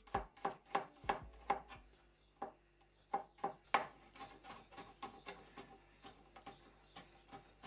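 Wide-bladed kitchen knife mincing garlic cloves on a cutting board: quick chopping strikes, about three or four a second, with a short pause about two seconds in, then lighter, more scattered taps.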